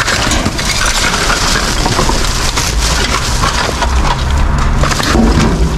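White plastic rubbish bag rustling and crinkling close up as hands pull it open and rummage through the rubbish inside, with many small crackles.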